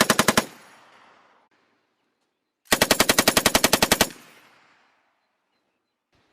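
Machine gun firing fully automatic: one burst cuts off about half a second in, then a second burst of roughly a dozen rounds at about ten shots a second, each burst followed by echo dying away.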